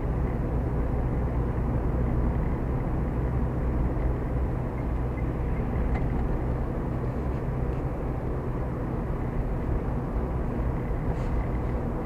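Car engine and tyre noise heard from inside the cabin while driving along a city street, a steady rumble with no marked change in speed.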